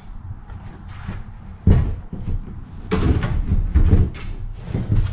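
A removed plastic front bumper cover and its thin aluminium mesh radiator screen being handled and turned over on a cardboard box: a sharp thump about one and a half seconds in, then a run of knocks and rattles.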